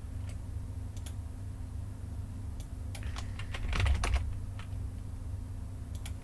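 Typing on a computer keyboard: scattered keystrokes, with a quick flurry about three and a half to four seconds in, over a steady low hum.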